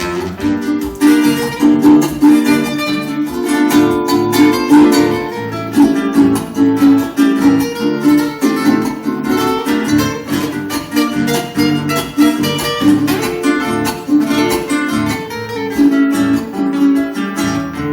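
Acoustic guitar music: an instrumental passage between sung verses of a folk song, with quick plucked and strummed notes in a steady rhythm.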